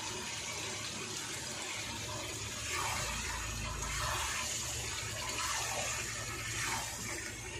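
Chicken pieces in oily yogurt masala sizzling steadily in a kadai. From about three seconds in a metal spatula stirs and scrapes them, and the sound grows a little louder. The masala is being fried down until the oil separates.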